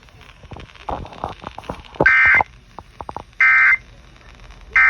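Emergency Alert System end-of-message data tones received over the radio: three short bursts of warbling digital tones about 1.4 seconds apart, marking the end of the alert. Faint radio static crackles before them.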